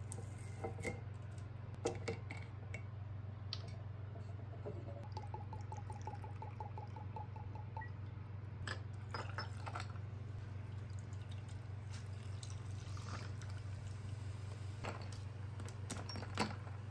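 Liquid glugging out of a bottle into a small glass cup: a quick, even run of glugs for about three seconds, from about five seconds in. Scattered clinks of glass and tableware come before and after, over a steady low hum.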